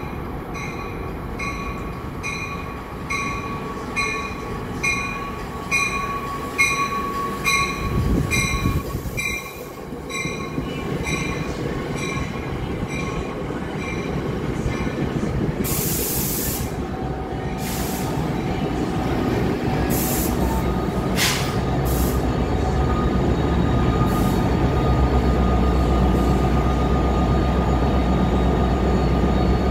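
NJ Transit passenger train pulling into a station platform. Its bell rings about twice a second for the first ten seconds, a few short bursts of hiss follow midway, and a low rumble from the train grows louder toward the end.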